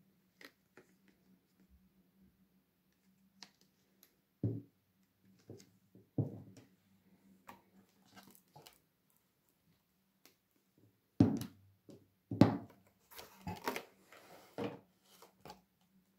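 Plastic slime bottles being lifted out of a cardboard display box and set down on a table: scattered knocks and clunks, then a busy stretch of handling noise as the box is moved, near the end.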